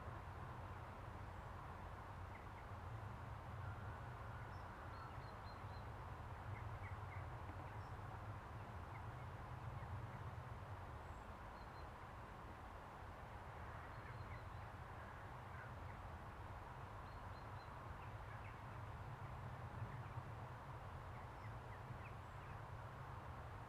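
Faint, scattered short bird chirps over a steady low rumble of background noise.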